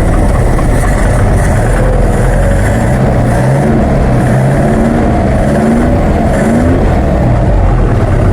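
1981 Grumett Sport's engine running steadily, its pitch rising briefly a few times in the middle. The engine has been brought back to running after many years standing.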